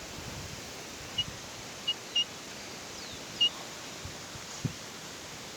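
Metal detector giving four short, high beeps at irregular intervals as it is swept over the ground: a weak target signal, which the detectorist takes for a nail.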